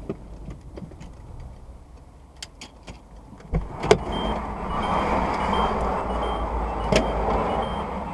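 Road traffic passing a stationary car, heard from inside the cabin: a rush of noise swells from about four seconds in and holds, with a few sharp clicks and faint short high beeps repeating.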